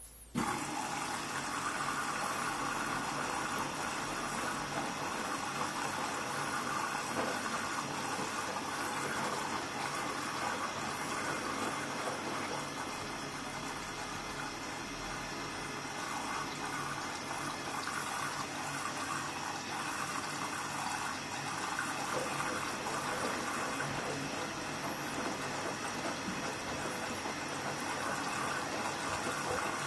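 Hoover washing machine taking in water for its final rinse with fabric softener: a steady rush of running water that starts suddenly about half a second in.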